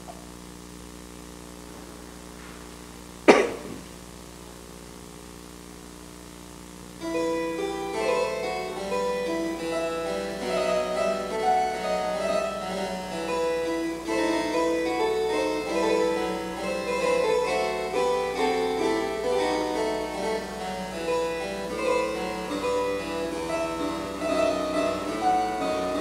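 Harpsichord music. About three seconds of faint steady tones are broken by a single sharp click, and about seven seconds in the harpsichord starts a fast, busy passage of many quick notes that carries on.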